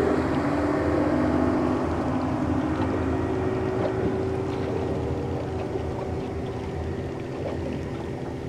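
Outboard boat engines running steadily at speed, a constant engine tone that slowly fades, over the rush of water and wind.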